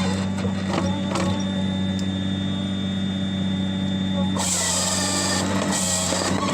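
A machine's engine running at a steady pitch, with mechanical clicks and clatter. A loud hiss comes in about four and a half seconds in, lasts about a second, then comes back briefly.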